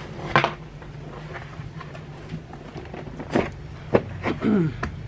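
Cardboard shipping box being handled and its flaps folded: several sharp knocks and scrapes at irregular moments, over a low steady hum.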